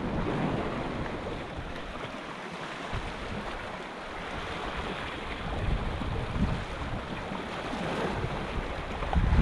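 Sea waves washing against a rocky shore, with gusts of wind buffeting the microphone, the gusts growing stronger near the end.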